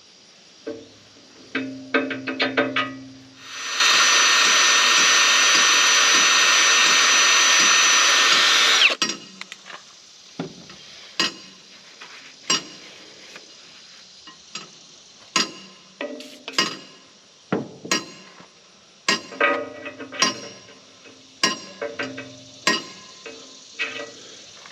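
A power tool runs loudly and steadily for about five seconds during work on a bulldozer bushing bore, with a thin high whine over the noise. Before and after it come sharp metal taps and clinks, about one a second.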